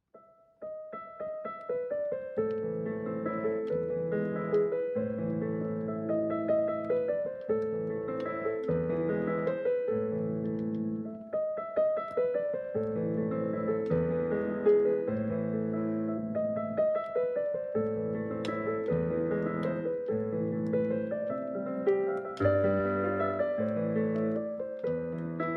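Background piano music: sustained chords under a run of struck notes at an even pace.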